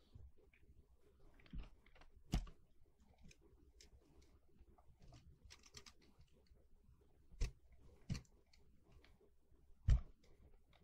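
Quiet, irregular clicks and scrapes of a thin metal tool tip against a circuit board as it pries and edges away blobs of hardened yellow glue, with a few sharper clicks, the loudest near the end.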